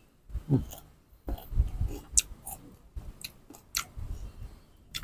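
Chewing a mouthful of crunchy unripe green mango close to the microphone: a string of short crunches and wet mouth noises.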